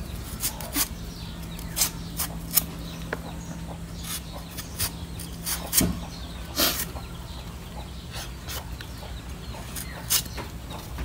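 A cleaver peeling the skin off a green mango: short scraping strokes of the blade at irregular intervals, over a faint low hum in the first half.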